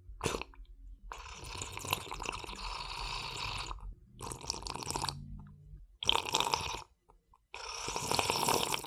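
A person sipping a drink: a run of noisy sips with short pauses between them, one long sip early and several shorter ones after.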